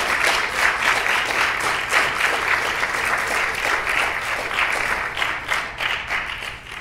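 Audience applauding, the clapping thinning and tapering off near the end.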